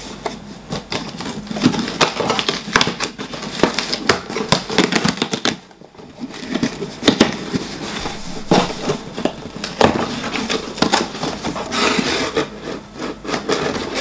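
Cardboard shipping box being torn open by hand: irregular crackling, ripping and scraping of the cardboard flaps and tape, with a brief lull about halfway through and a longer tearing sound near the end.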